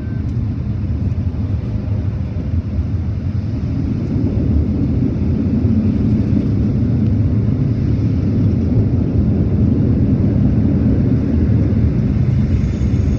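Automatic tunnel car wash machinery, brushes and water spray, heard from inside the car's cabin as a steady low rumble that grows louder about four seconds in.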